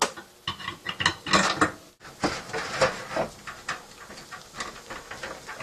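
Ventline-style RV roof vent crank being turned from below with a long threaded rod and a 3D-printed knob adapter: irregular clicking, knocking and rattling of the crank mechanism and rod as the vent lid opens.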